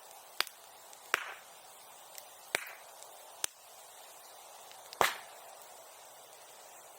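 Bonfire popping and cracking: five sharp snaps over a low hiss, the loudest about five seconds in.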